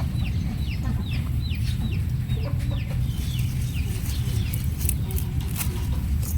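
Chickens calling with many short chirps that fall in pitch, several a second, over a steady low rumble.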